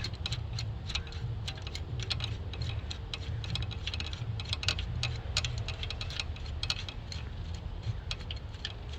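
Irregular light metallic clicks from a socket and extension as a spark plug is threaded by hand into its hole, over a low steady background rumble.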